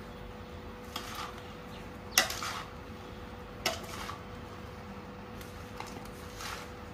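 A few light knocks and clicks of a utensil against a metal vessel while spices are mixed for pickle, the sharpest about two seconds in, over a faint steady hum.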